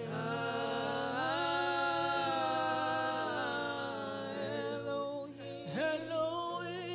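Worship singing: a voice holding long, slowly bending notes, one held from about a second in to past the middle, over a steady low tone underneath.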